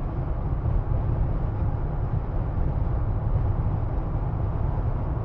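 Steady road and wind noise inside the cabin of a soft-top 2024 Jeep Wrangler Rubicon cruising at highway speed: a dense low rumble with an even hiss above it and no changes.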